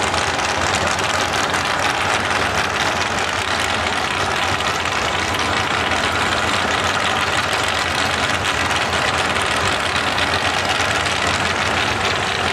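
Drag race car engines idling steadily near the starting line, a constant engine rumble with no revving or launch.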